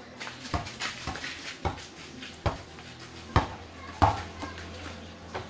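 A basketball dribbled on hard-packed dirt: short, sharp bounces about once a second, the loudest about four seconds in.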